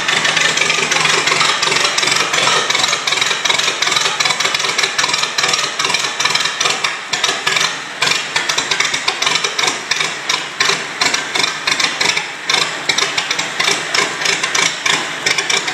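Ford Model T tractor's four-cylinder engine running in rapid, somewhat uneven beats with a loose clattering rattle. This is the engine running for the first time in many years.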